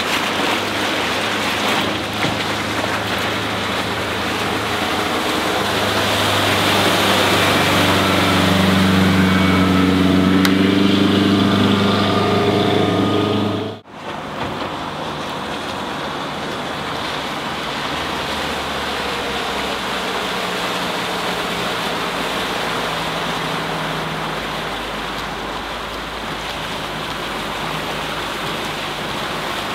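Sea Ray 175 bowrider's sterndrive engine running under way, mixed with a steady rush of water and wind noise; its note rises in pitch over several seconds. About halfway through the sound cuts abruptly to a steadier, quieter rush with a fainter engine note.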